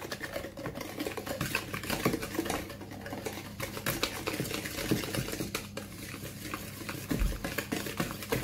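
Hand whisk beating flour into yogurt cake batter in a plastic bowl: a fast, continuous clicking and scraping of the wires against the bowl.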